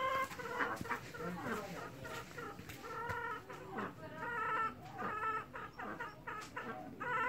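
Chickens clucking: a run of short, repeated calls.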